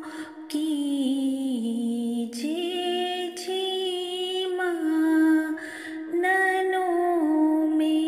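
A woman singing an Ismaili ginan, a devotional hymn, in long held notes that slide from one pitch to the next, with short breaks for breath between phrases.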